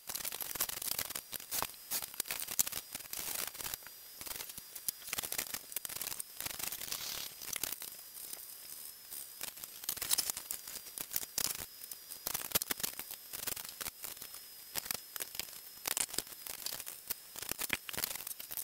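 Irregular light clicks, scrapes and small knocks of metal parts being handled as an ER20 collet holder is fitted to the milling machine's dividing head and the tap blank is set in the collet.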